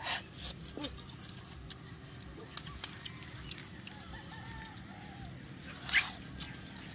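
A rooster crowing and chickens calling in the background, with scattered light clicks and taps; a short, loud call about six seconds in.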